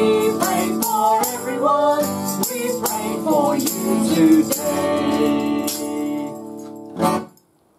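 A man and a woman singing a gentle song to strummed acoustic guitar with a tambourine shaking along; the voices hold a last note that fades, then a final guitar strum and tambourine shake about seven seconds in end it abruptly.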